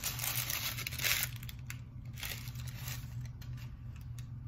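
Rustling and crinkling of paper and cardboard packaging as an item is handled and unwrapped. It is loudest for about the first second and a half, then gives way to a few light clicks and taps.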